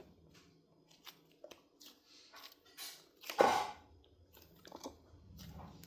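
Butter slime being worked by hand: scattered soft, sticky clicks and squishes, with one louder, longer squish about three and a half seconds in.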